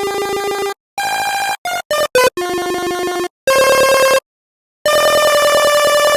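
Chiptune-style pulse-wave synthesizer built in GarageBand to imitate the 'duty cycle' tone, playing a melody of single buzzy notes, some short and some held, with brief gaps between them and a pause of about half a second near the middle.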